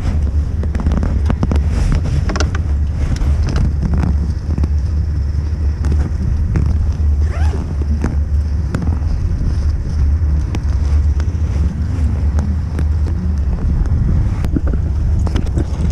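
Wind rumbling on an action camera's microphone, with rustling and soft knocks as gloved hands handle a bag and riding gear.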